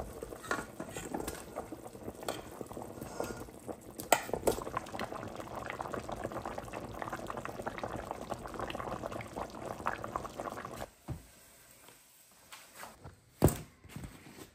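A pot of beef stew boiling with dense bubbling, which dies away about eleven seconds in. Two sharp knocks, the louder near the end.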